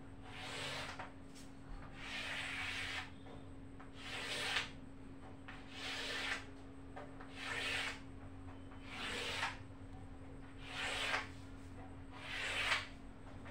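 A pen or marker drawn across a writing surface in eight long, even strokes, about one every one and a half seconds, each growing louder toward its end: a ledger account being ruled out by hand.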